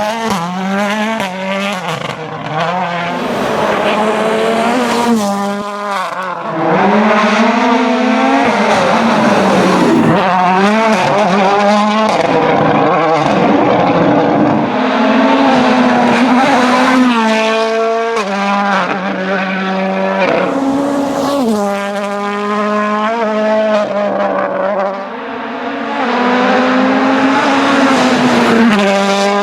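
Toyota Yaris WRC rally car's 1.6-litre turbocharged four-cylinder engine driven hard, its pitch repeatedly climbing and dropping as it accelerates through the gears and brakes for corners.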